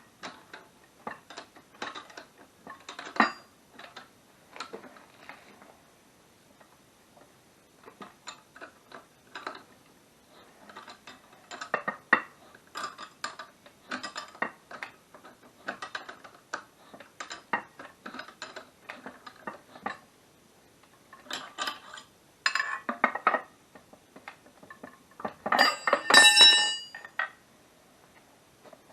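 Metal tools and suspension parts clinking and knocking irregularly as a strut and its top mount are handled and assembled, with a louder ringing metallic clatter lasting about a second and a half near the end.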